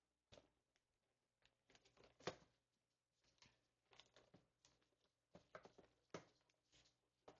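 Faint, irregular rustling, crinkling and small taps of a present's packaging being handled and opened, with a sharper rustle about two seconds in.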